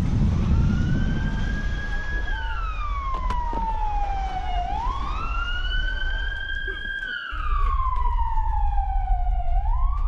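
A siren wailing: the pitch climbs quickly, holds, then slides slowly down, a cycle of about five seconds that runs twice, with the next climb starting near the end. A steady low rumble lies under it.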